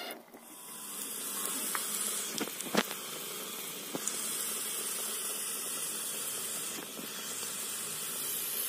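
Sliced onions and green chillies sizzling steadily in hot oil in a ladle over a wood fire, frying for a tempering, with a few sharp crackles.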